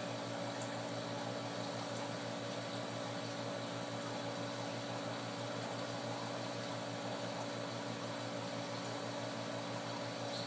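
Aquarium pump and equipment humming steadily, a low electric drone with a faint hiss of circulating water.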